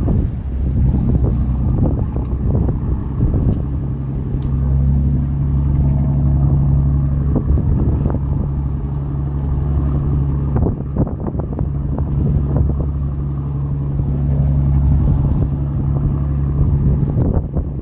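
A motor running steadily as a low hum, with wind buffeting the microphone and scattered knocks.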